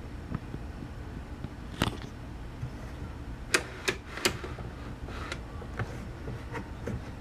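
A few sharp mechanical clicks from a 10-inch compound miter saw being adjusted, its table swung for an angle cut: one click, then three in quick succession about a second and a half later, over a low steady hum.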